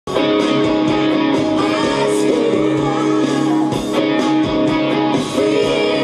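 Stratocaster-style electric guitar playing a sustained lead solo over a full pop-rock band backing.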